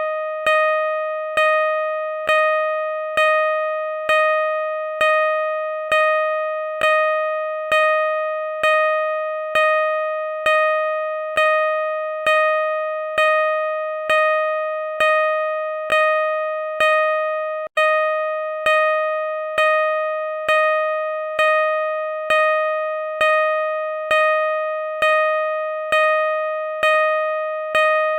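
Car parking sensor beeping: an electronic tone repeated at an even pace of roughly one beep a second, each beep fading slightly before the next, with no quickening. There is one momentary break about two-thirds of the way through.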